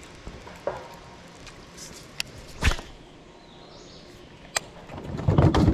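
Baitcasting reel being cast and cranked: a few sharp clicks and knocks, the loudest about midway, then from about five seconds a louder rough grinding as the lure is reeled in. The grinding comes from the reel, which is messed up.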